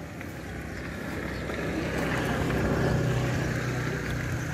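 A motor engine passing nearby: a steady low drone that grows louder over about three seconds, then eases off.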